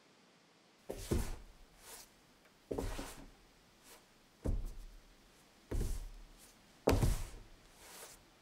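Hands handling a closed cardboard box: five short thumps and scrapes against the cardboard, unevenly spaced one to two seconds apart.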